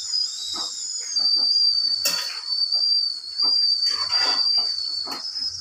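Steel spatula stirring thick curry in a steel pot, scraping and clinking against the metal at uneven strokes, loudest about two and four seconds in. A steady high-pitched whistle-like tone runs behind it.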